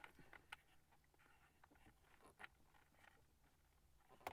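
Near silence, with a few faint clicks and rustles of hands handling plastic parts.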